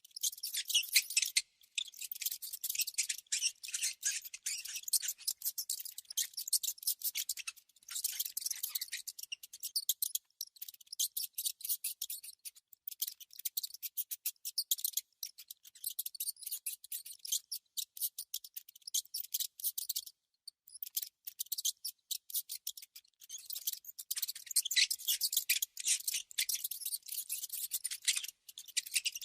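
A mouse scratching: dense, rapid, high-pitched clicks and scratches in irregular runs, broken by a few brief pauses.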